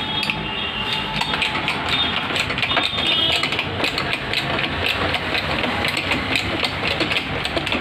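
A machine running steadily with a fast, even ticking rattle.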